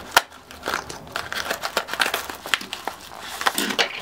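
Small scissors snipping through a yellow padded paper mailer, with the stiff paper crinkling and crackling irregularly as it is cut and handled.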